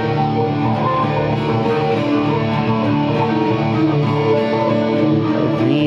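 Steel-string acoustic guitar strummed together with an electric guitar, a steady instrumental passage with no singing.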